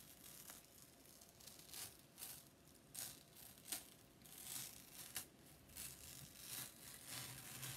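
Adhesive chalk transfer stencil being peeled slowly off a chalkboard: faint, irregular crinkling and tearing crackles.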